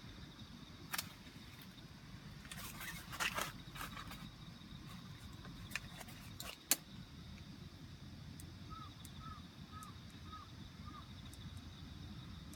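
Faint outdoor campsite ambience: a steady low rumble and a thin steady high tone, with a few sharp clicks and handling rustles in the first seven seconds, the last click the loudest. Near the end come five soft, quick chirps.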